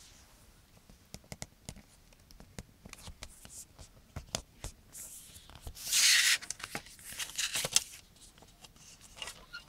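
A plastic CD jewel case and its paper booklet being handled: scattered light clicks and taps, then a loud papery scrape about six seconds in and a run of crackles, as the booklet is slid out from under the front cover's tabs.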